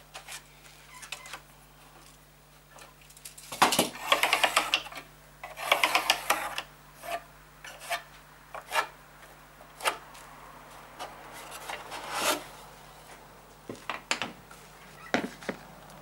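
Hand scraping and rubbing on pine boards in a few short bursts, the longest about four and six seconds in, with light taps and knocks in between.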